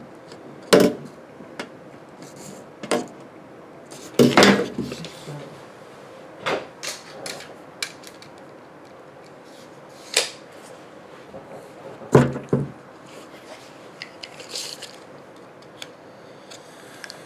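Scattered knocks and clinks of hand tools being handled and set down on a work surface, the loudest a short cluster about four seconds in, the others single taps a second or more apart.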